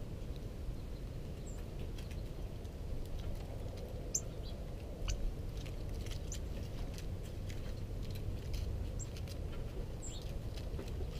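Female northern cardinal pecking and cracking seed on a snow-dusted wooden board close by: irregular small clicks, with a few short high chips, over a steady low rumble.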